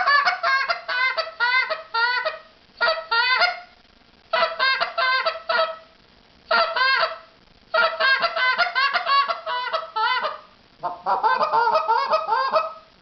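Goose call blown in the hiccup cadence: a moan and a cluck rolled together as two quick notes, strung into fast runs with short pauses between. The hiccup imitates geese on the ground getting excited, the cadence used to finish geese off.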